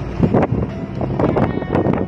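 Wind buffeting the phone's microphone at the bow of a moving yacht, in rough gusts that pick up about a second in. A steady low hum runs beneath it.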